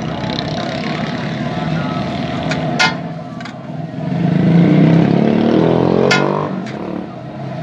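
Busy street traffic noise, with a motor vehicle engine revving up and rising in pitch as it passes about four seconds in. A few sharp metal clicks come from the spatula on the steel griddle.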